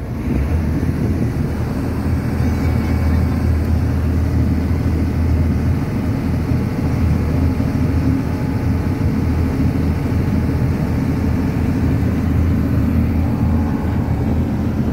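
Small passenger boat's engine running steadily under way, a loud, even low drone heard from on board.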